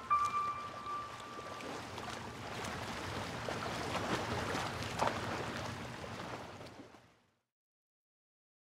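The last held note of the intro music dies away, under a steady wash of water sound like lapping waves. The water fades out to silence about seven seconds in.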